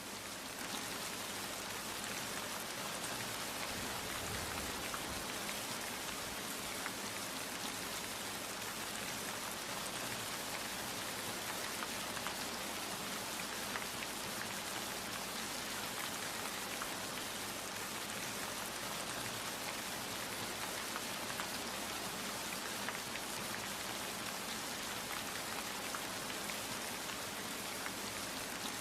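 Steady rain falling on a surface, a dense hiss of many small drop patters.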